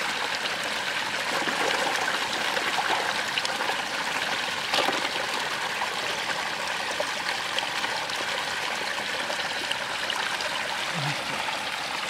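Water running in a small stream, a steady rush and trickle where the flow spills over a muddy bank into a shallow pool. A brief splash of hands in the water comes about five seconds in.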